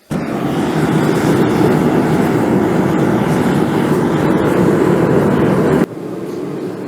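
Forge running with a steady rushing roar that starts abruptly and drops to a lower level about six seconds in.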